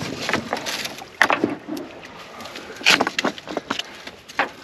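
Irregular clacks, knocks and scrapes of hard objects on rock, as a fitting is wedged between the stones of a riverbank stone packing; the sharpest knocks come just after a second in and again around three seconds in.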